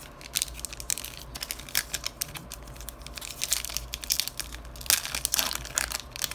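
Foil wrapper of a Panini Contenders basketball card pack crinkling and tearing as it is ripped open by hand: a run of sharp crackles, busiest and loudest about five seconds in.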